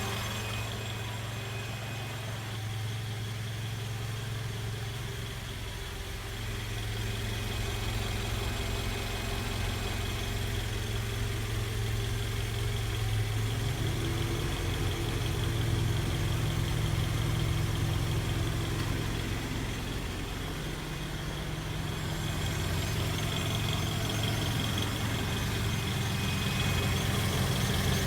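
Toyota Wish running, its engine note rising about halfway through and falling back later, with a thin high-pitched whine over it that grows stronger near the end. The whine is the abnormal transmission noise the owner is recording.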